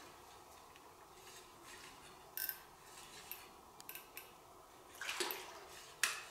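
Scattered sharp clinks and knocks of fishing gear being handled on rock, with a short rush of noise about five seconds in and the loudest knock near the end.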